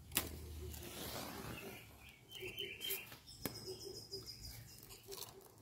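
Faint bird chirps, with a sharp click just after the start and another about three and a half seconds in, as a flame is lit at the kindling of a wood fire.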